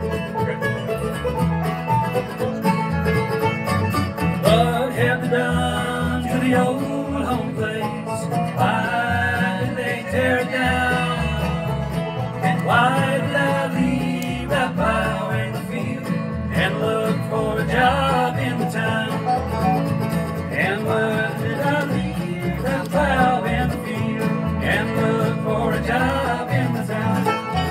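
Acoustic bluegrass band playing an instrumental break. Banjo and guitar play over upright bass, with a lead line of sliding, bending notes on top.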